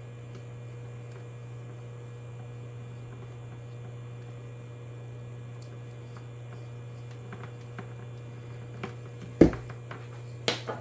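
Steady low electrical mains hum, with one sharp knock about nine seconds in and a few light clicks near the end.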